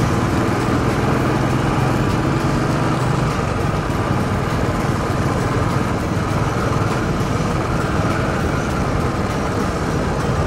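Royal Enfield Bullet's single-cylinder engine running steadily while the motorcycle is ridden along at an even pace, with a constant rush of wind and road noise.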